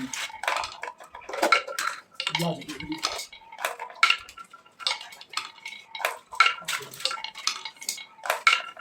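Small hard toy pieces clattering and clinking against each other in irregular sharp clicks, some with a short ringing tone.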